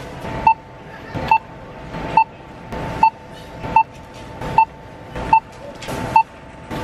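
Self-checkout barcode scanner beeping as items are scanned: a short, high beep about every eight-tenths of a second, eight in all, each with a brief click of handling.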